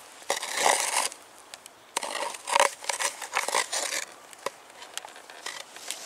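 Crunching of freshly fallen snow underfoot in a few irregular bursts, with scattered small clicks.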